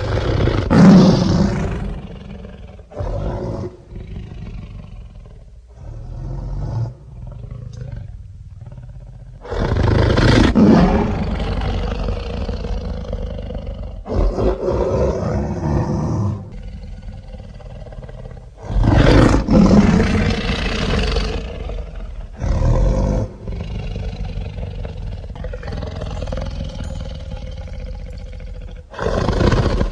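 A string of fictional dragon roars made by layering film-monster and dinosaur roar sound effects. Three long, loud roars come near the start, about ten seconds in and about nineteen seconds in, with shorter roars and growls between them.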